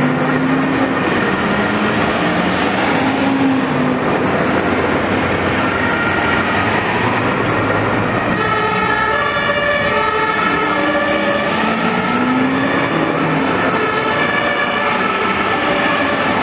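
Two-tone German fire-engine sirens (Martinshorn), several sounding at once and overlapping as fire trucks drive past, with a fresh, clearer horn coming in about halfway through.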